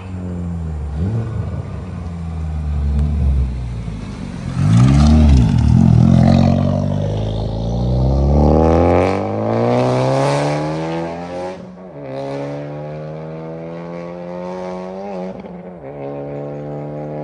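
Honda Civic Type R FK8's turbocharged 2.0-litre four-cylinder engine running through a Max Racing track exhaust and being revved. A quick rev rises and falls about five seconds in, then the note climbs steadily for several seconds, drops sharply, and settles to a lower, steadier note.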